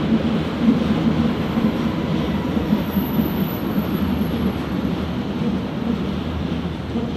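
Berlin U-Bahn train running past on an elevated steel viaduct: a steady rumble of wheels on rails, with a faint high whine in the middle, beginning to fade near the end as the last car goes by.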